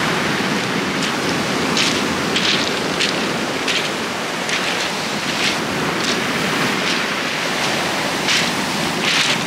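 Steady rush of sea surf washing on a shingle beach, with short hissing rattles every second or so.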